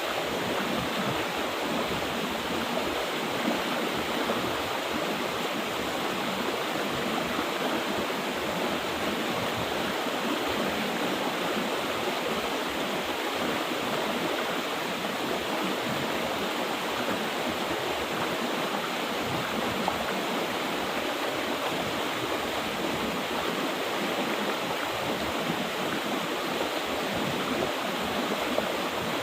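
Mountain river water flowing, a steady, even rush.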